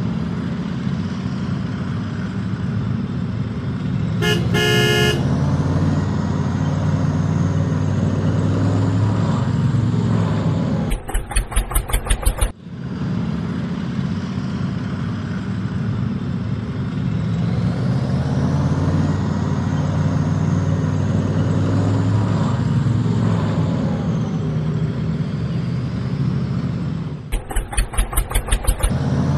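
A tractor engine running steadily at a low, even pitch, with a horn tooting briefly about four seconds in. Twice, near the middle and near the end, the engine gives way to a second or two of rapid, even ticking.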